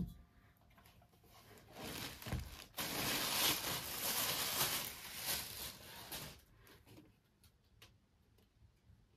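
Thin plastic wrapping bag rustling and crinkling as it is pulled off an electric pressure cooker's housing, for about five seconds, with a few small ticks near the end.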